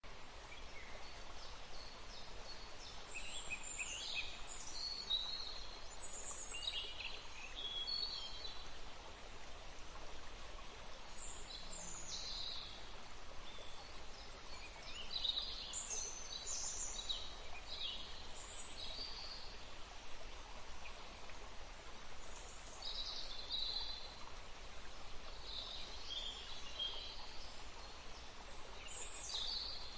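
Several birds chirping and trilling, many short calls throughout, over a steady rush of running water.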